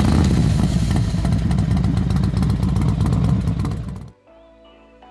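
Moto Morini X-Cape's 650cc parallel-twin engine running loudly, cutting off abruptly about four seconds in. Faint music follows.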